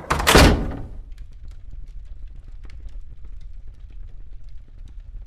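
Sound-design transition: a heavy thud with a whoosh in the first second, then a low steady rumble dotted with small scattered crackles and ticks.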